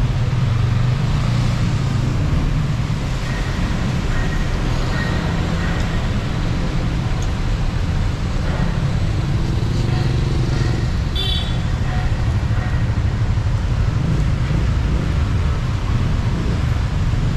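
Steady road traffic on a wet street: a low rumble of car, taxi and motorcycle engines with tyre hiss on the wet road. A brief high squeak comes about eleven seconds in.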